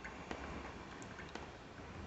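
Water from a leaking roof dripping, a few faint irregular drops landing about once every half second.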